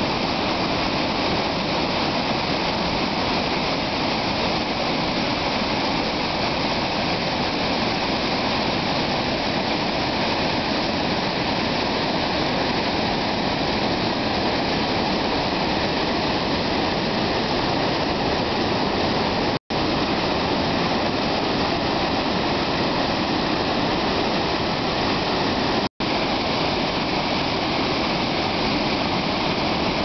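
Muddy floodwater pouring in torrents from a concrete dam's outlets and spillway into a churning basin: a loud, steady rush of water from a dam in flood. The sound cuts out for an instant twice, about two-thirds of the way through.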